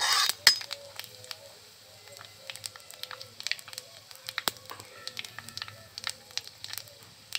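Cumin and fenugreek seeds frying in hot mustard oil in an iron kadhai, with scattered sharp pops and crackles. A metal ladle stirs across the pan briefly at the start.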